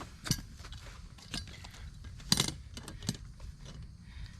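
Metal clinks and rattles from handling a hog leg snare's steel cable and spring hardware: four sharp clicks, the loudest a short rattle a little past two seconds in.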